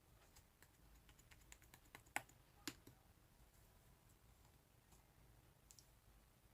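Soft, fluffy clay slime being pressed and worked by fingers, giving a scatter of small sticky clicks and pops, with two sharper pops a little past two seconds in.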